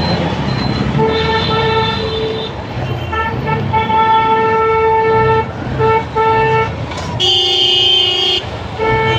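Vehicle horns honking in stop-and-go traffic over the low rumble of idling engines. From about a second in, one horn gives a string of blasts, some long and some short. Near the end a second, lower horn sounds for about a second, then the first horn gives one more short blast.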